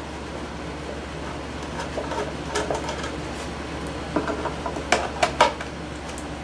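Nut driver unscrewing a chassis screw through the bottom of a radio case: scattered small metal clicks and scrapes, with a cluster of sharper clicks about five seconds in, over a steady low hum.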